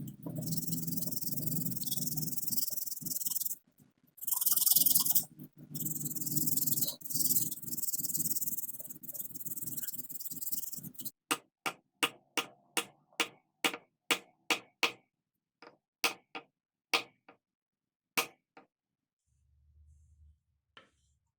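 Woodworking noise on wood: a steady rasping or grinding sound with a few short breaks for about eleven seconds, then a run of sharp knocks, about two a second, spacing out and stopping near the end.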